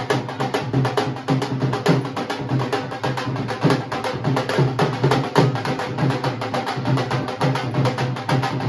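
Music with a busy, steady percussion beat: rapid light strikes over a low drum beat about twice a second.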